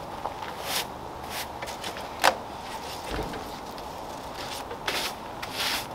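Stiff-bristled hand brush swept over a rough, weathered pine slab in several short, scratchy strokes, with one sharp knock a little past two seconds in.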